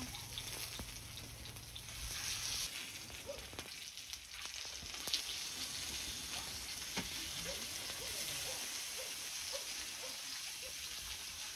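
Pork belly sizzling and frying on a grill plate, a steady crackling hiss.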